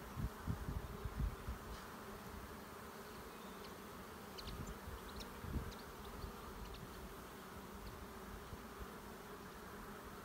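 Honey bees buzzing around an open hive as its frames are lifted out, a steady hum. A few soft low thumps near the start and once near the middle.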